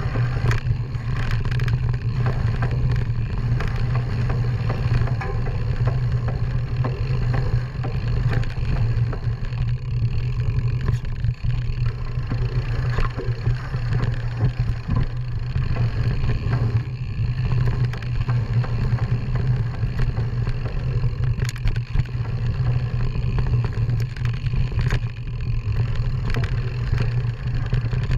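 Ride over a bumpy forest dirt trail heard from a handlebar-mounted camera: a steady low drone with scattered clicks and knocks throughout.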